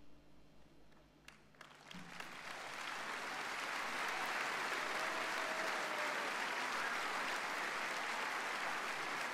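A last held note from the band fades out, then a concert audience breaks into applause. The clapping builds about two seconds in and stays steady.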